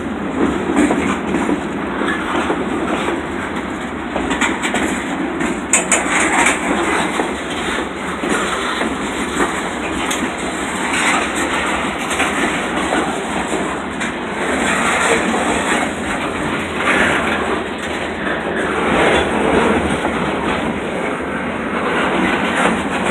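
Freight train's boxcars rolling past at close range: steady rumble and rattle of the cars, with repeated knocks of the wheels over the rail joints.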